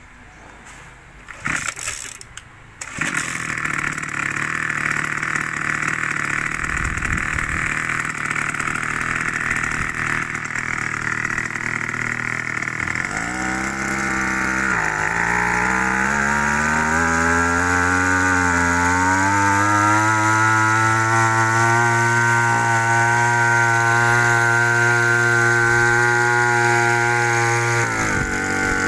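Kioritz SHR E500 backpack power sprayer's small two-stroke engine starting with a couple of pulls, then running at idle. About halfway through it is throttled up to drive the pump through the spray lance: the engine note dips and climbs twice, then holds steady and high until it drops off near the end.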